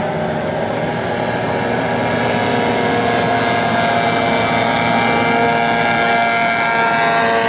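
Several small two-stroke outboard racing hydroplanes running at full throttle together, their engine notes layered into a steady high-pitched whine. One boat passes close and grows louder from about three seconds in.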